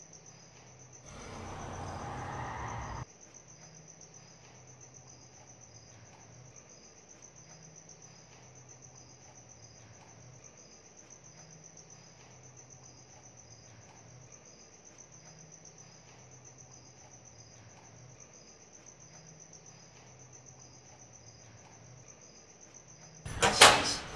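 Night ambience of crickets chirping steadily, with a low throb repeating about every two seconds. About a second in, a louder rushing noise lasts two seconds and cuts off sharply, and a sudden loud sound comes near the end.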